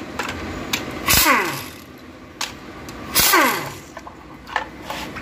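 Impact wrench run in two short bursts, about a second in and again about three seconds in, each ending in a whine that falls in pitch as it spins down. It is undoing the bolts that hold the oil strainer to an automatic transmission's valve body. A few sharp clicks come between the bursts.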